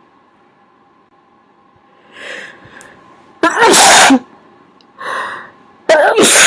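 A person sneezing twice into a covering, each sneeze preceded by a short gasping inhale. The first sneeze comes about three and a half seconds in, the second near the end. Both come out loud despite the attempt to hold them down.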